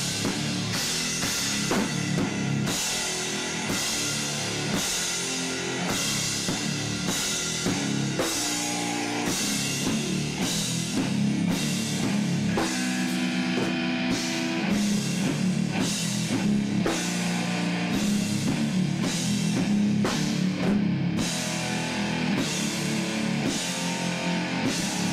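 Rock band playing: a drum kit keeping a steady beat with cymbal hits, under electric guitars and bass guitar holding low chords and riffs.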